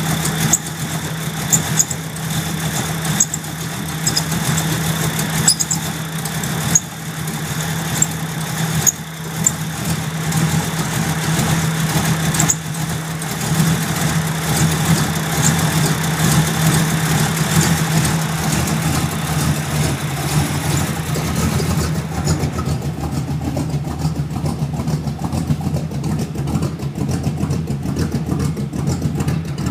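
SN95 Ford Mustang engine idling roughly, with irregular stumbles and sharp ticks over a steady hum; the ticks die away about two-thirds through. This rough idle persists after the ignition timing was reset to the number-one mark.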